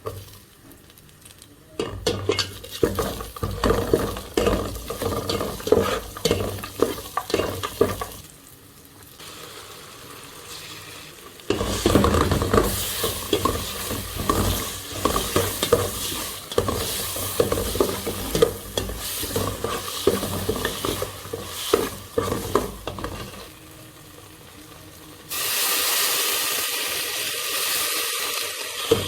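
A spoon stirring and scraping food in a hot pan with bursts of quieter pause between, while the food sizzles in oil. Near the end a steady, louder hiss starts suddenly.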